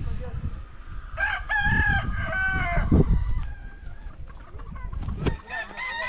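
A rooster crowing once, a long call of about two seconds that breaks near its end, over a steady low rumble.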